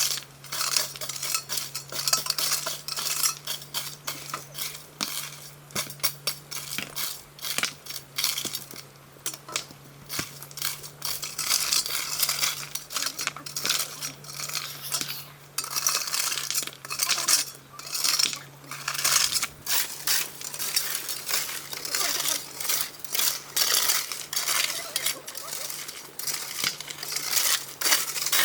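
Dense, rapid clinking and scraping sounds with short irregular pauses, over a steady low hum.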